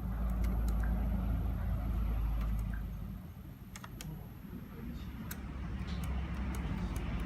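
Servo motor driven by a Yaskawa SGDM-02ADA servo amplifier running on a bench test with a steady low hum. The hum drops away for about a second and a half in the middle and then comes back. A few sharp clicks sound over it.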